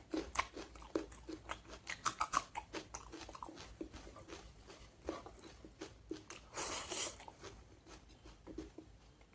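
Close-miked chewing and biting of pork curry, wet smacking clicks of the mouth coming several times a second. About seven seconds in comes a louder breathy burst of noise.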